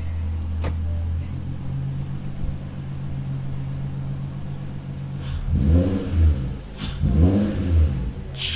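The 3.2-litre VR6 engine of a swapped VW Golf Mk4 idling steadily, still cold just after start-up. About five seconds in it is blipped twice in quick succession, each rev rising and falling, with a few sharp crackles.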